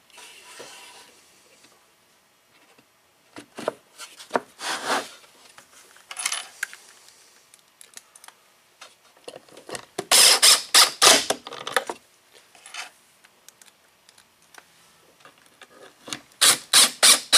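Cordless drill driving pocket screws into half-inch plywood in quick bursts, in two loud runs: one about ten seconds in and one near the end. Earlier there are a few softer knocks as the wooden panels are fitted.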